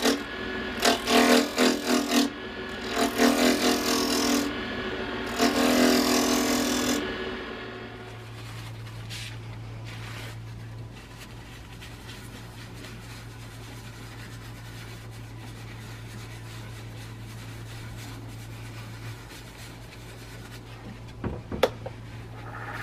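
Wood lathe turning a walnut piece: a hand-held turning tool cuts the spinning wood for the first seven or so seconds, an uneven scraping with a ringing chatter. The lathe then runs on with a steady low hum, and a couple of sharp clicks come near the end.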